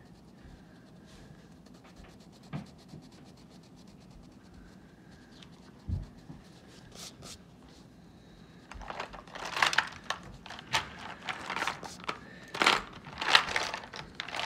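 Orange wax crayon scribbling on paper in quick back-and-forth strokes, colouring in; faint and sparse at first, then a steady run of scratchy strokes from about nine seconds in, with a couple of light knocks before it.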